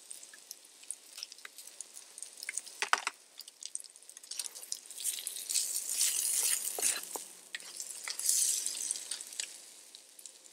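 Mashed potatoes and onions frying in oil in a pan, sizzling, with the clicks and scrapes of a utensil stirring them. The sizzle swells louder about halfway through.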